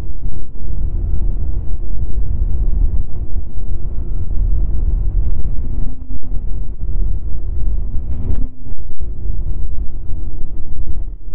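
Snowmobile engine running steadily at trail speed, its drone buried under heavy wind buffeting on the microphone.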